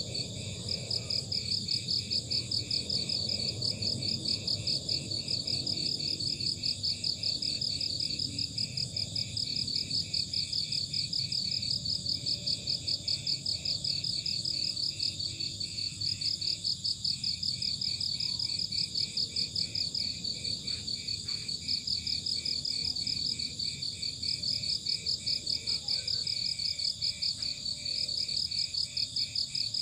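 Several crickets chirping together in a steady rapid pulse, at a few different pitches, over a low steady background noise.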